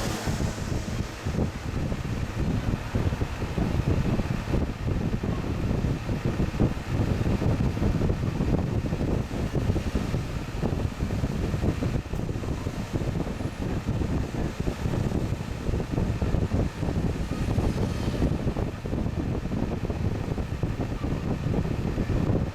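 Haier JA-SP25G spot air conditioner running, its fan pushing out a steady rush of air, with airflow buffeting the microphone as an uneven low rumble.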